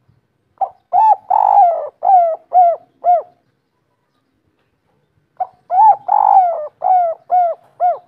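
Spotted dove cooing, a local bird of the call type hobbyists call 'kuk 3': two call phrases a few seconds apart, each a brief lead-in, a coo, a long drawn-out coo, then three short coos.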